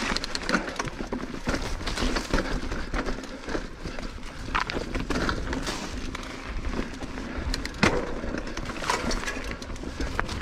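Mountain bike riding down a dirt singletrack: tyres rolling and crunching over dirt and small stones, with frequent sharp knocks and rattles from the bike over bumps, the sharpest about eight seconds in. A low rumble of wind on the microphone runs underneath.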